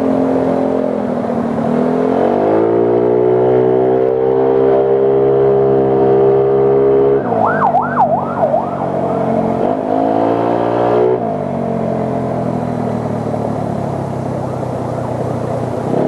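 Motorcycle engine running while being ridden: its pitch climbs about two seconds in as it speeds up, holds steady, then drops about seven seconds in. Shortly after the drop, a brief warbling tone rises and falls several times.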